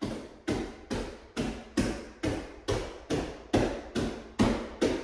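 Steady rhythm of thuds on the floor, a little more than two a second, from a fast bodyweight exercise.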